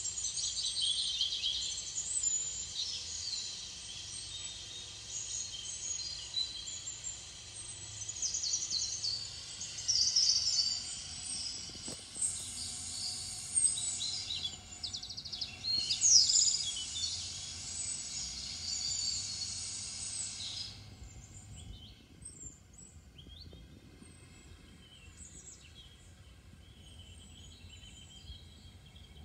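Many birds chirping and singing together in a dense chorus, which drops abruptly about two-thirds of the way through to fainter, sparser chirps.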